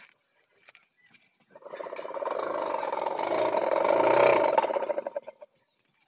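Hand-cranked forge blower, its fan driven by a string belt from a bicycle-wheel pulley, whirring as it is spun up to blow air into the clay furnace. The sound swells for about three seconds, then dies away.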